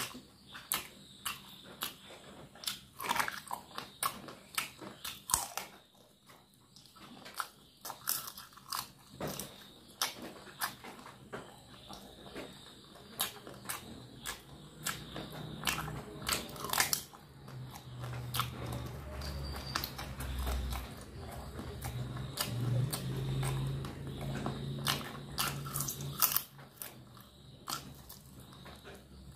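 Close eating sounds of a person biting and chewing cooked chicken legs and chicken feet held in the fingers: frequent crunches, bites and mouth smacks. A low drone sits underneath from about halfway to near the end.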